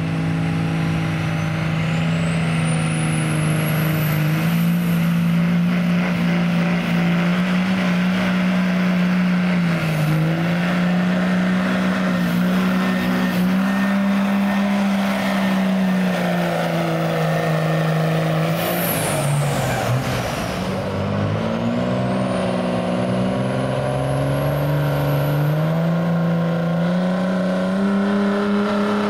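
Dodge Ram diesel pickups with Cummins straight-six engines at full throttle, pulling a weight-transfer sled. The engine drones at a high, steady pitch that sags and recovers under load, and a high whistle climbs in pitch twice, typical of the turbo spooling. Two pulls run one after the other, with a short break in the sound near the end.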